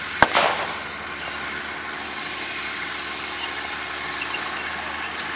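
M4 high-speed tractor's engine running steadily as the tracked tractor tows a Long Tom field gun. A single sharp crack, the loudest sound, comes about a quarter of a second in, followed by a brief burst of noise.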